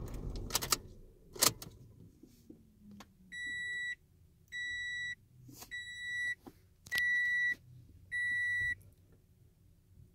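An electronic beeper sounding five even beeps, each a steady high tone of about half a second, a little over a second apart, while the scan tool clears the stored trouble codes. A few sharp clicks come in the first couple of seconds.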